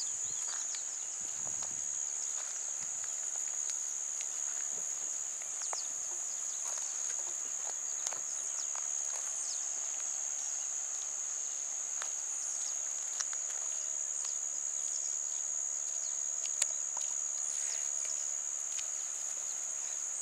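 A steady, high-pitched insect drone that never lets up. Beneath it are scattered rustles and small snaps of grass and leaves.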